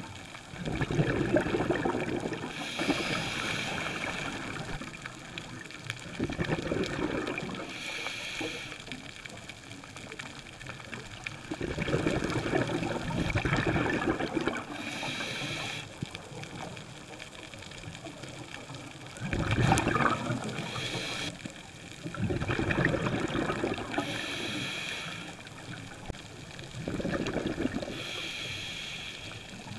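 A scuba diver breathing through a regulator underwater: short hissing inhalations alternate with longer gurgling rushes of exhaled bubbles, about five breath cycles at an even pace.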